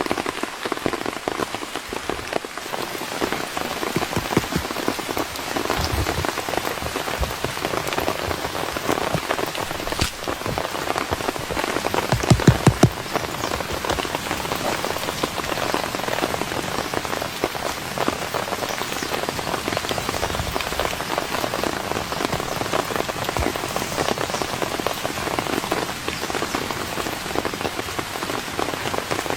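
Steady rain falling, with many separate drops striking close by, and a quick run of louder thuds about twelve seconds in.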